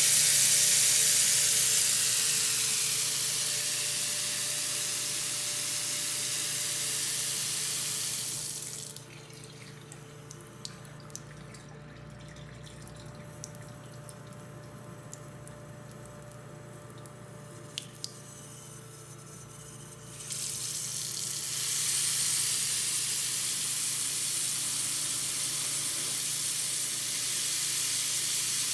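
Water running from a tap into a sink, a steady rushing hiss. It stops about nine seconds in, leaving a quieter stretch with a few faint clicks, and runs again from about twenty seconds in.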